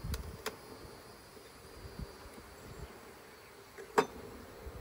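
Honey bees buzzing at the open hive, a faint steady hum. Wooden hive frames click and knock as they are pried and shifted in the box: two light clicks at the start and a sharper knock about four seconds in.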